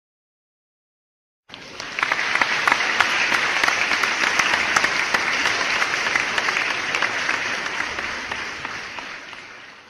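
Audience applauding: many hands clapping at once, starting suddenly about a second and a half in and fading away near the end.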